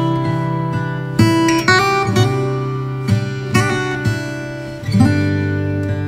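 Background music: acoustic guitar strumming chords at an easy pace, with a new strum every half second to a second.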